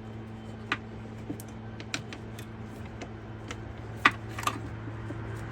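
Scattered light clicks and knocks of tools and parts being handled in a car's engine bay, about six spread unevenly, the sharpest about four seconds in, over a steady low hum.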